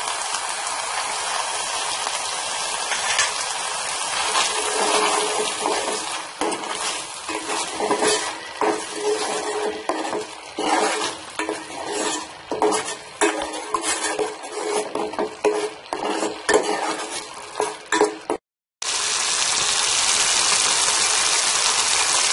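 Tomato sauce sizzling in a pan while a metal ladle stirs it, scraping and clinking against the pan in quick irregular strokes. The stirring stops near the end, leaving a steady sizzle.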